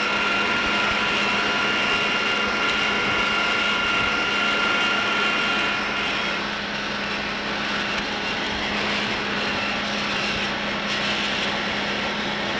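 Machine tool running steadily while reaming the hosel bores of forged golf iron heads to take the shaft. It makes a continuous mechanical whine with a steady high tone that fades about halfway through.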